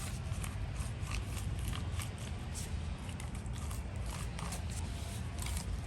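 Faint, irregular clicks and handling noise from a gunk-filled vintage ratchet being worked by hand just after it was broken free, over a steady low hum.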